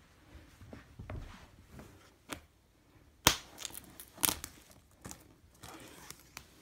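Cardboard router box being torn open at its 'Open here' tab: a run of sharp snaps and crackles of card giving way, the loudest about three seconds in and a quick cluster just after.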